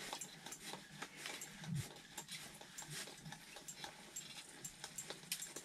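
Faint, irregular clicks and light rustles of a fishing rod, reel and gear being handled, with one brief low sound falling in pitch a little under two seconds in.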